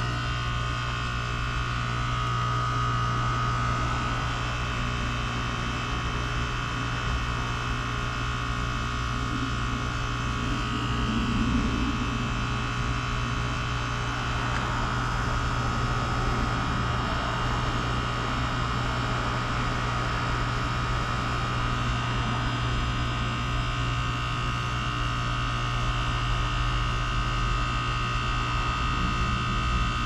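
2015 Goodman GSZ14 heat pump outdoor unit running in its defrost cycle, giving a steady low hum with fainter steady higher tones above it.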